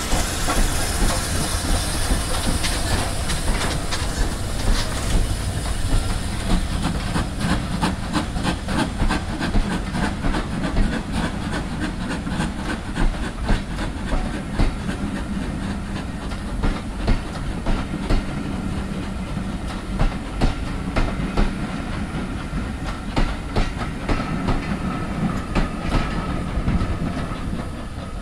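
Two BR Standard Class 5 steam locomotives working hard as they accelerate a train, with hissing steam and a run of sharp exhaust beats. The coaches follow, rolling by with their wheels clattering over the rail joints and pointwork.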